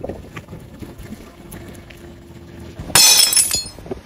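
Glass breaking under a car tyre about three seconds in: one loud shattering burst that crackles on for about half a second.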